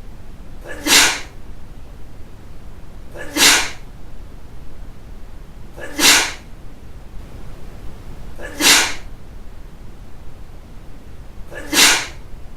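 Sneezes, five in a row, each short and sudden, coming about every two and a half seconds.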